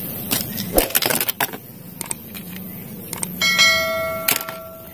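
Hard plastic toy trucks clattering as they are picked up and set down, with a few sharp knocks in the first second and a half. About three and a half seconds in, a bell-like chime rings for about a second and a half: the ding of an on-screen subscribe-button overlay.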